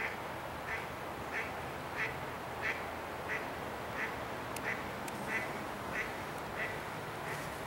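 A duck quacking over and over at an even pace, short calls about three every two seconds.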